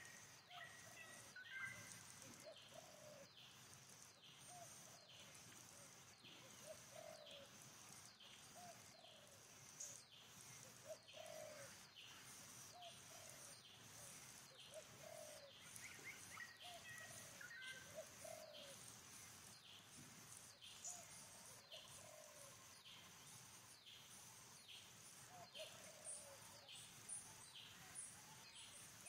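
Faint forest ambience: a bird repeats a short, low, falling call about once a second over a quicker run of high falling chirps, with a steady high-pitched insect drone underneath.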